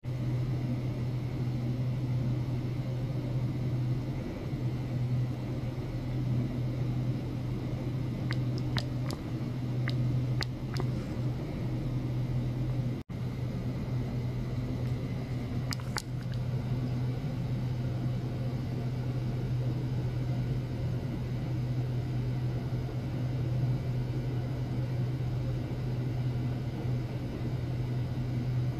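Steady low electrical hum from running equipment, with a few faint ticks about eight to eleven seconds in and again around sixteen seconds. The sound cuts out for an instant about thirteen seconds in.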